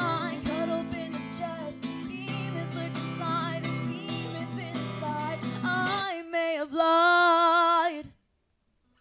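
Strummed acoustic guitar with a woman singing, closing on one long held sung note that starts about six seconds in as the guitar drops away, then cuts off suddenly.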